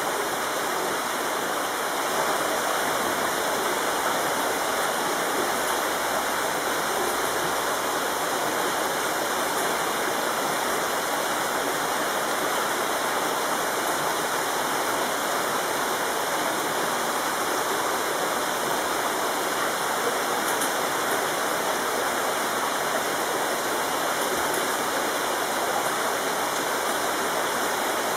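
Running water rushing steadily, an even hiss that does not change.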